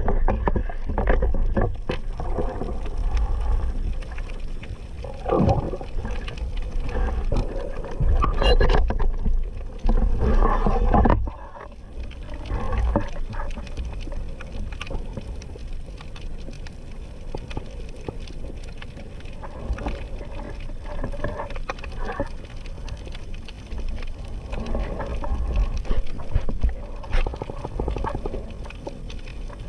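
Underwater sound picked up through an action camera's housing: a heavy low rumble of moving water with many knocks and clicks while a speared grouper is handled on the spear shaft. About eleven seconds in the rumble drops suddenly, leaving a quieter crackle with scattered clicks.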